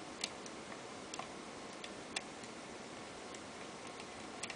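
Lock pick and tension wrench working the pin stack of an old brass Bird rim cylinder during single-pin picking, giving scattered light irregular clicks; the picker suspects a pin has been overset. Under it runs a steady hiss of background noise from a hot tub.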